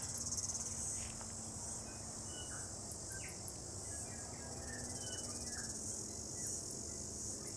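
Steady, high-pitched chorus of insects throughout. A few very thin, very high, short peeps of riflemen cut through it about three seconds in and again near six and a half seconds.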